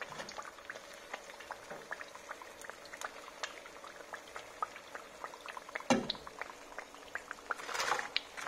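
Battered potato and kumara pieces deep-frying in a wok of hot oil, the oil bubbling with a steady stream of small crackles and pops. A metal knock about six seconds in, and a brief clatter near the end as the wire spider tips the fried pieces into a mesh strainer.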